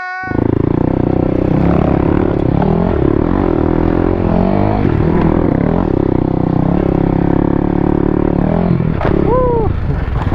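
Kawasaki D-Tracker 250X single-cylinder four-stroke with a Yoshimura slip-on exhaust, heard from the rider's helmet while riding over grassy humps. The engine is revved up and then eased off several times as the throttle is worked. A short pitched cry comes about nine seconds in.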